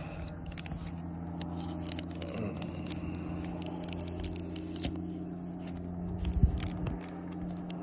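Crinkling and clicking of a clear plastic sleeve and foam pouch as a hard plastic PSA graded-card slab is handled and turned over, with a louder bump near the end. A steady low hum runs underneath.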